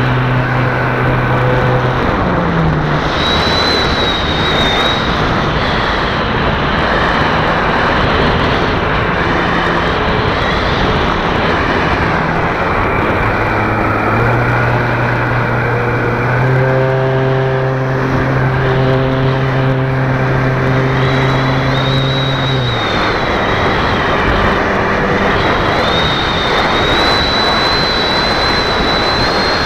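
Radio-controlled model Cessna 350's motor and propeller running, heard from a camera mounted on its wing, under heavy rushing wind noise. A low hum and a high whine shift up and down in pitch several times.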